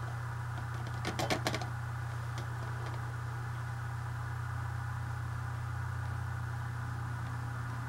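Steady low hum throughout, with a brief cluster of small clicks about a second in from a paintbrush knocking against the pans of a metal watercolour tin.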